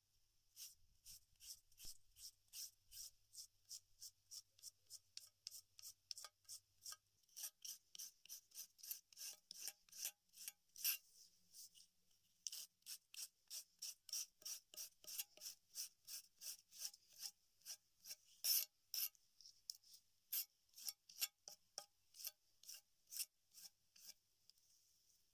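A hand-held stone scraped again and again along a green yucca leaf on a flat stone slab, stripping the pulp off to free the fibres: a long run of short rasping strokes, about two or three a second, with a brief pause about halfway through.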